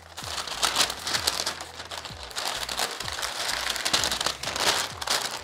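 Baking paper and aluminium foil crinkling in many quick, irregular crackles as the sheets are handled around a joint of meat.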